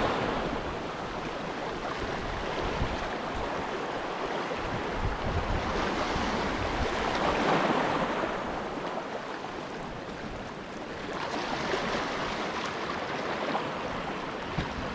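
Small sea waves washing and foaming over shoreline rocks in a steady hiss that swells and eases, rising a little twice.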